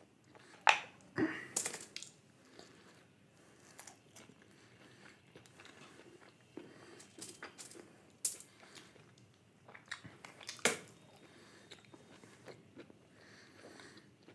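A person eating momos close to the microphone: quiet, irregular chewing and biting, with a few sharp clicks, the loudest about a second in and at about ten and a half seconds.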